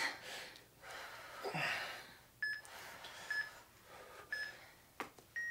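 Hard breathing and exhaling from exercising, with three short electronic countdown beeps from an interval timer about a second apart. A longer beep starts near the end, marking the end of the work interval.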